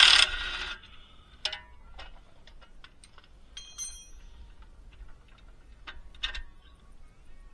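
A power tool cuts off in the first moment, then scattered light metallic clicks and clinks of tools and suspension hardware being handled. The sharpest come about a second and a half in and just after six seconds.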